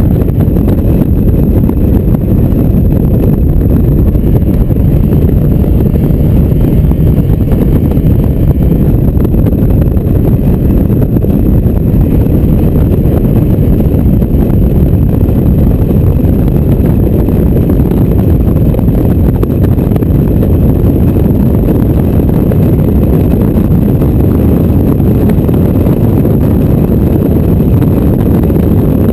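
Mazda MX-5 driven at track speed with the roof down: wind rushing through the open cockpit and buffeting the microphone, over the car's engine and road noise. A loud, steady rumble throughout.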